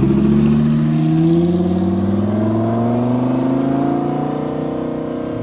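Audi R8's mid-mounted engine accelerating away in one long pull, its pitch rising steadily, then cut off abruptly at the very end.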